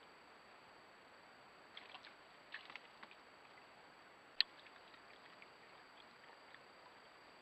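Faint steady hiss with a thin high whine, a few soft ticks and rustles about two to three seconds in, and one sharp click about four and a half seconds in.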